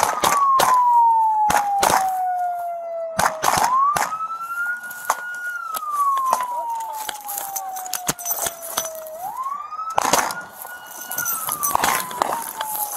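Police car siren wailing. Each cycle climbs quickly, holds briefly, then falls slowly, repeating about every five and a half seconds. Many sharp clicks and knocks sound over it at uneven intervals.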